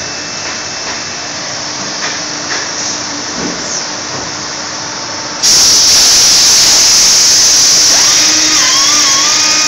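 Shoemaking machine running, with a steady high-pitched hiss that jumps sharply louder about five and a half seconds in. A wavering whistle-like tone comes in near the end.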